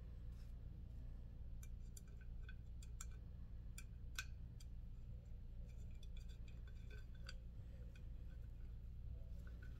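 Scattered small metallic clicks and taps of an Allen key working in the hardware of a Trek Madone seat post head, the sharpest about four seconds in, over a low steady hum.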